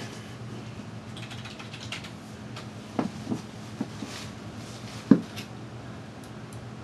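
Scattered single keystrokes on a computer keyboard, a handful of short clicks with the sharpest about five seconds in, over a low steady hum.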